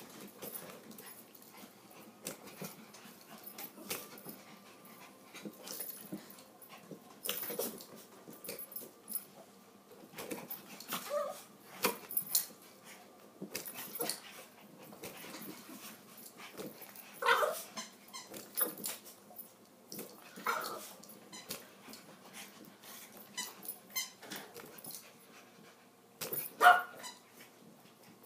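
Yorkshire terriers playing with a balloon: a handful of short, sharp barks, the loudest near the end, over many quick taps and squeaks as the balloon is pawed, bitten and batted about.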